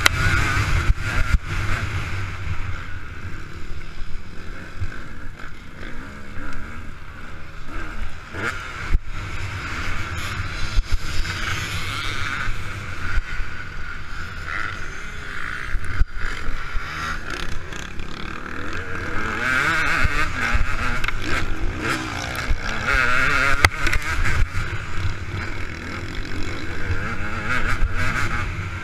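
KTM 200 EXC two-stroke dirt bike engine revving up and down under hard riding on a dirt motocross track, heard from a helmet-mounted camera, its pitch rising and falling with the throttle.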